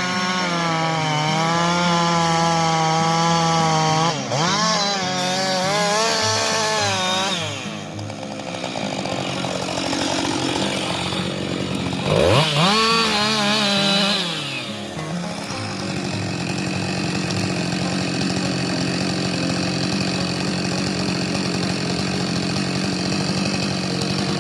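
Chainsaw running at high revs and cutting wood, its pitch wavering under load in the cut. The pitch drops and climbs back about four seconds in and again around twelve seconds in; from about sixteen seconds on it runs steadier.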